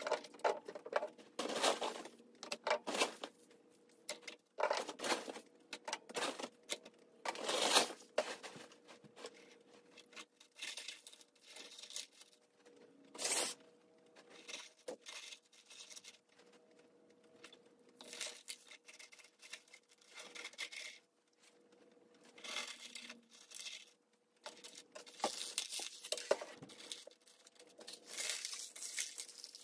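Expanded clay pebbles (Hydroton) rattling and crunching in irregular bursts as they are scooped and poured into the plastic net pots of a hydroponic bucket lid, with a faint steady hum underneath.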